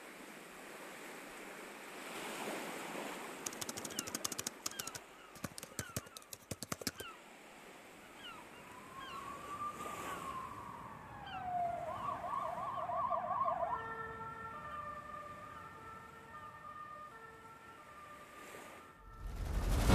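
A siren slides up and down once, then switches to a rapid warble for about two seconds, over a faint hiss with a flurry of quick clicks a few seconds in. Sustained electronic notes follow, and loud music starts at the very end.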